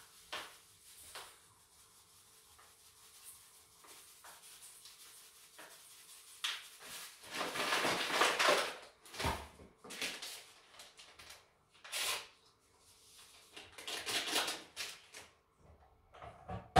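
Granulated sugar poured into a stainless steel mixing bowl: a grainy rattle lasting about two seconds, then a knock and a few shorter pours.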